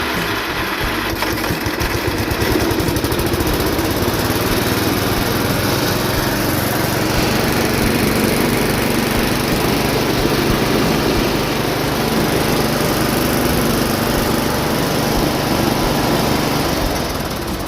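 Riding lawn mower's small petrol engine running steadily.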